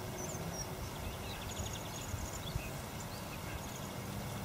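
Small birds chirping faintly, with a quick trill about one and a half seconds in, over a low steady outdoor rumble.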